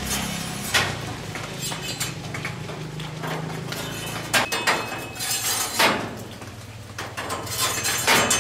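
Intermittent sharp knocks and clinks of hard objects, a second or more apart, over a low hum that fades out about four seconds in.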